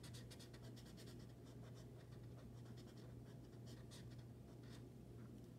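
Felt-tip marker rubbing back and forth on a fabric tote bag in rapid short colouring strokes, faint, over a low steady hum.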